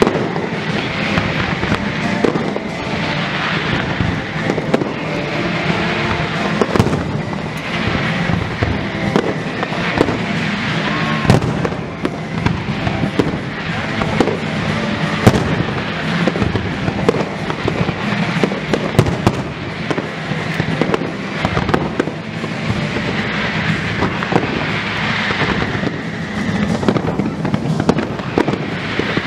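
Fireworks display: aerial shells bursting and crackling stars popping in quick succession throughout, over music playing underneath.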